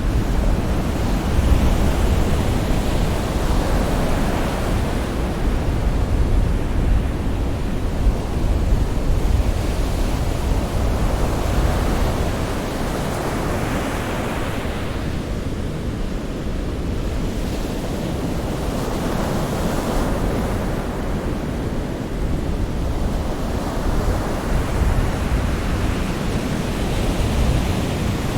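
Sea surf: waves breaking and washing in a continuous rushing noise that swells and eases every few seconds, with a deep low rumble underneath.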